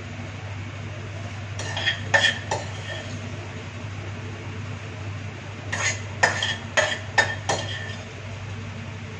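A metal spoon clinking and scraping against a metal pan while stirring: a few ringing strikes about two seconds in, then a quicker run of five or so clinks from about six to seven and a half seconds in. A steady low hum runs underneath.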